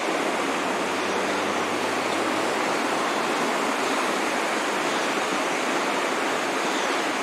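The flood-swollen Mohawk River rushing past: a steady, continuous noise of fast-moving floodwater.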